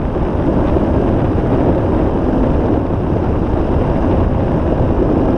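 Steady rush of wind on the microphone mixed with the rumble of an electric skateboard's wheels rolling over a paved path.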